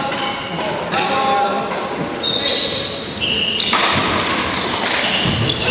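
Sports shoes squeaking on an indoor court floor during badminton play: short high squeals at shifting pitches, with low thuds of footwork in an echoing hall.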